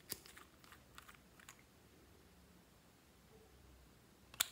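Small clicks and taps of a glass nail polish bottle and its cap being handled and unscrewed: a cluster of light clicks in the first second and a half, then two sharp clicks near the end.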